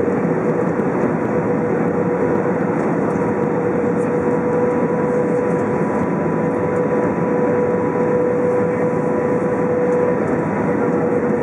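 Airbus A320 cabin noise on final approach: a steady rush of airflow and engine noise with a steady hum running under it.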